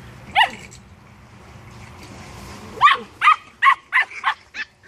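Puppies yipping while play-fighting: one short high yip, then about two seconds later a quick run of six high-pitched barks.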